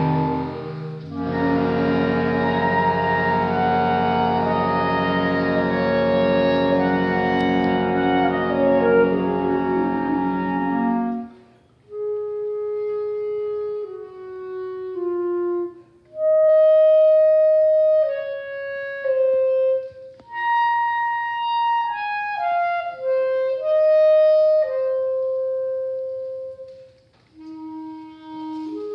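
Clarinet choir playing full, sustained chords, with a contrabass clarinet sounding the low bass, until they stop about eleven seconds in. After that comes a thin, slow line of held clarinet notes, mostly one at a time, with brief pauses.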